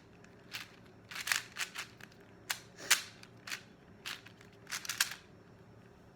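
Plastic 4x4 Rubik's cube being turned by hand: quick, irregular clacks of the layers snapping round, coming in clusters and stopping about a second before the end.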